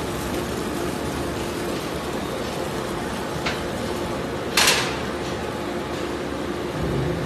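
Belt conveyors running with a steady machine hum as shredded waste tumbles off one belt onto another. There is a sharp, loud clank about halfway through.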